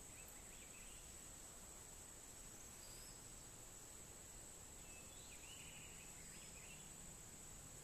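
Faint, steady, high-pitched drone of insects such as crickets, with a few faint short chirps now and then.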